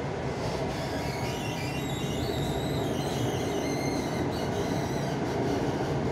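Mumbai Metro train running along its line, heard from inside the carriage: a steady rumble of wheels and running gear, with a thin high whine coming in for a couple of seconds in the middle.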